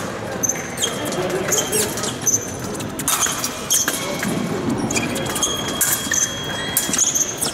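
Fencers' shoes squeaking sharply on the piste during an épée bout, mixed with quick footwork stamps and clicks of blade contact.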